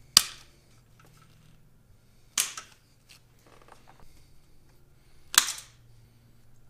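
Three sharp snaps, a couple of seconds apart: nylon cable ties on a loader's hose protector being cut.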